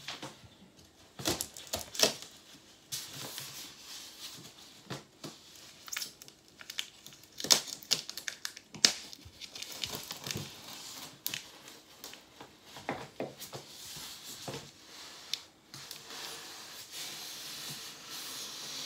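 Knife blade being drawn along the seam of a styrofoam cooler lid, scraping and snagging on the foam in irregular clicks, crackles and short tearing scrapes. A steadier rubbing hiss follows near the end.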